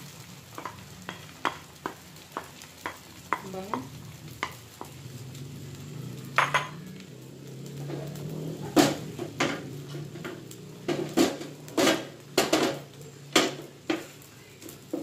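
Beaten egg frying in a nonstick pan with a light sizzle, while a wooden spatula scrapes and taps against the pan in short knocks that come thicker in the second half. A low steady hum runs underneath.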